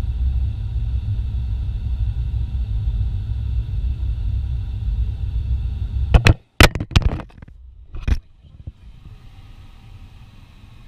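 Farm machine's engine running steadily with a low rumble, cut off about six seconds in by a few sharp clicks and knocks, after which it is much quieter.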